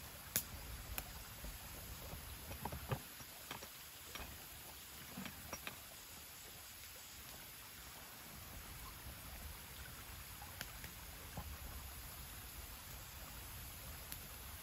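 Faint shoreline ambience: small waves lapping among the stones of the loch's edge over a steady low rumble, with a few scattered light clicks, the sharpest about half a second and three seconds in.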